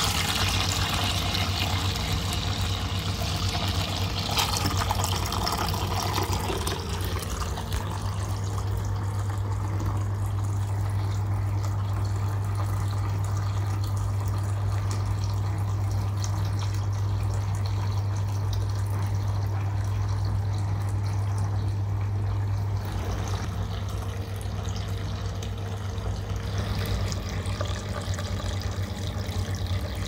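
Soapy wash water draining by gravity out of a 1948 Hoover 0307 washing machine's hose, pouring and splashing into a bucket of suds, strongest in the first several seconds. A steady low hum runs underneath.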